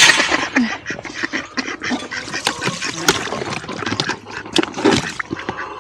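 Domestic hens clucking, mixed with scattered knocks, clicks and rustling.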